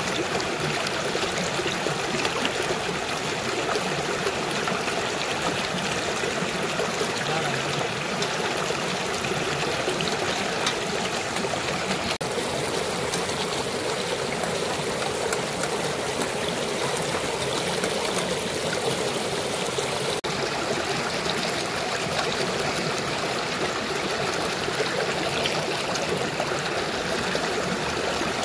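Shallow rocky river flowing, a steady rush of water trickling and splashing over boulders.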